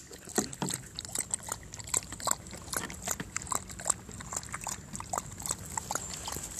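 A dog lapping water from a shallow plastic tray: an uneven run of short wet laps, several a second.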